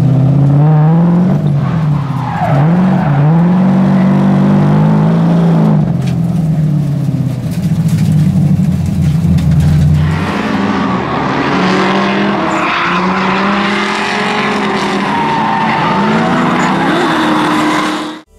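Car engine revving hard, its note rising and falling again and again. About ten seconds in it changes to drift cars at full throttle with tires squealing.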